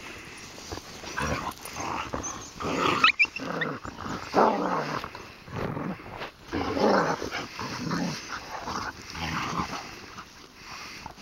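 Dogs play-growling as they wrestle in the snow, in rough grumbling bursts about once a second. A short high yelp comes about three seconds in.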